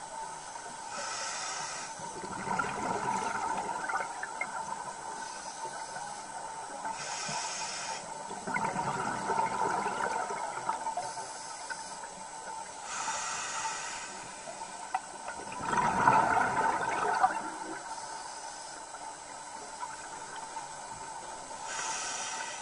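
Water noise, hissing and bubbling, swelling up and down about every six seconds.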